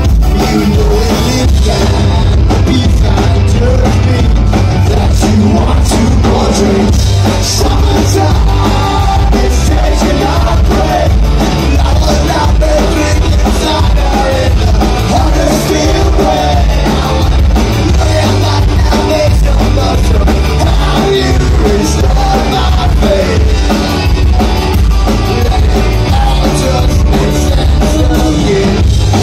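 Live band playing loud through a club PA, with electric guitars, bass, keyboard and drum kit, and a singer's vocal over the top; heavy bass.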